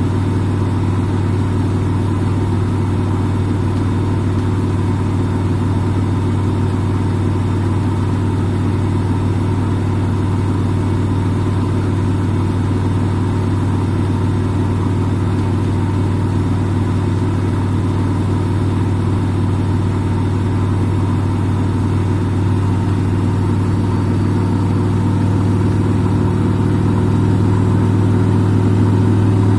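Front-load washing machine in its spin cycle: a steady motor-and-drum hum with a few steady whining tones above it, growing slightly louder near the end.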